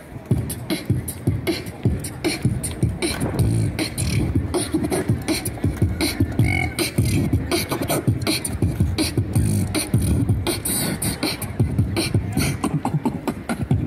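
Beatboxing: one performer's mouth sounds layering five parts at once over a steady beat, among them hi-hat, snare drum, bass drum and DJ turntable scratches.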